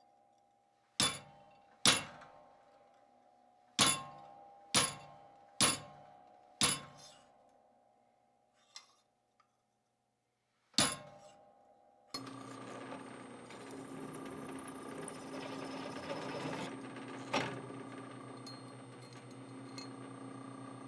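Sharp hammer blows on steel, seven over about ten seconds, each ringing briefly. About twelve seconds in, an electric motor's steady hum with a high whine cuts in abruptly, with one more strike heard over it.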